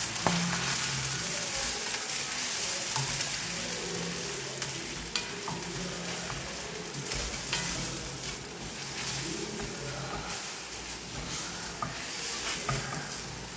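Eggs sizzling in olive oil in a stainless steel frying pan as a wooden spatula stirs and breaks them up, with small scrapes and taps of the spatula against the pan.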